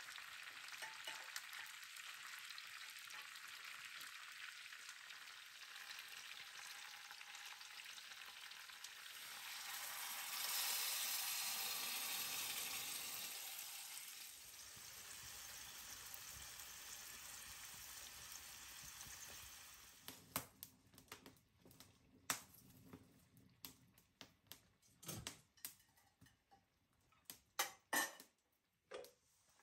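Chicken pieces in tomato sauce sizzling in a pan over a wood fire, a steady hiss that grows louder for a few seconds about ten seconds in. About twenty seconds in the sizzle stops and scattered light clicks and knocks follow.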